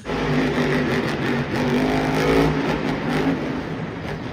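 A monster truck's engine running with a steady low note under a rough rumble, easing slightly in loudness toward the end.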